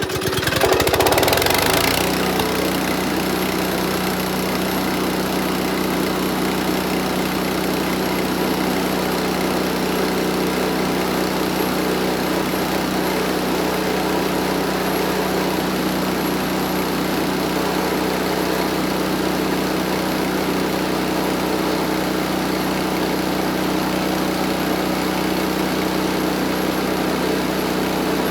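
Small gas engine of a Landworks wood chipper running at steady speed just after being rope-started, louder for the first couple of seconds and then holding an even drone.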